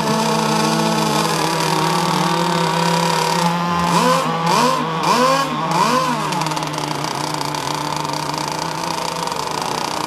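Twin electric motors of a 6S Genesis RC speedboat running at speed across open water, a steady whine whose pitch swoops up and down in quick humps several times around the middle.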